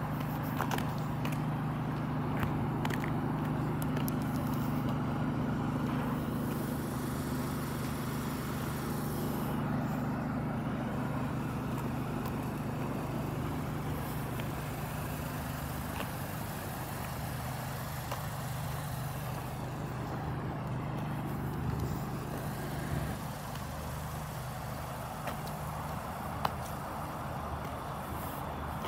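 Diesel engine idling steadily with a low hum. Its tones weaken after about halfway and drop away near the end, with a few light clicks early on.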